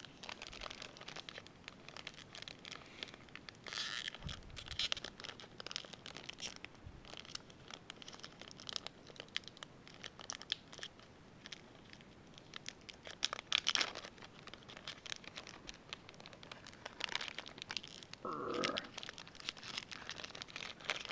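Plastic trading-card pack wrappers and packaging being torn open and crinkled by hand: a run of scattered crackles and rustles with a few louder rips.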